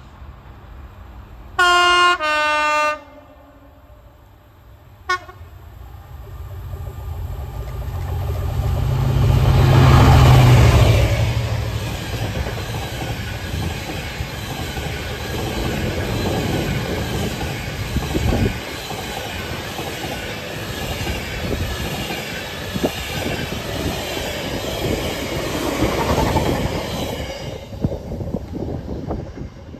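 Freightliner Class 66 diesel locomotive gives two horn blasts and then a short toot as it approaches. Its two-stroke V12 diesel engine grows loud as it passes about ten seconds in. A long rake of empty flat wagons follows, rumbling with wheels clicking over the rail joints, before fading near the end.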